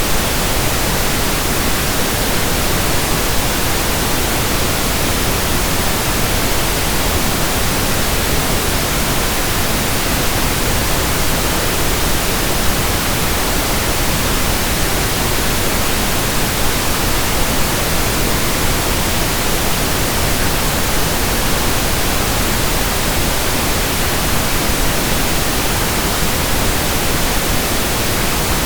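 Steady pink noise: an even, unchanging hiss across the whole range of pitch, with no breaks or rhythm.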